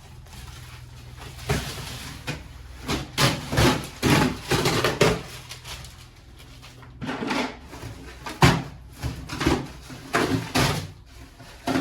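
Irregular knocks, bumps and scrapes of building work, as of timber and debris being handled, over a steady low hum.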